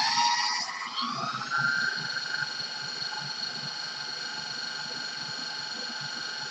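A twenty-year-old KitchenAid stand mixer's motor whining as it speeds up over the first second and a half, then running steadily at high speed, beating dry ingredients in its steel bowl.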